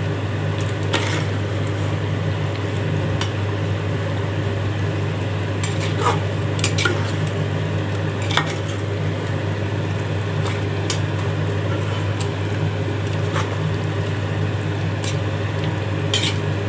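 Metal ladle stirring chicken pieces in thick gravy in a metal pot, with scattered scrapes and clinks of the ladle against the pot over a steady sizzle of the gravy cooking. A steady low hum runs underneath.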